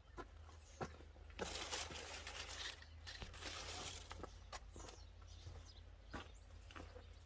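Rustling and tearing noise in two stretches of about a second each, amid scattered clicks and light knocks.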